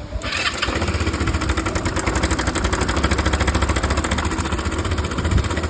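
Fuel-injected Kymco GP125 scooter's single-cylinder four-stroke engine running with a fast, even rattle over its low hum, setting in just after the start. This is the abnormal noise the customer reported as growing louder.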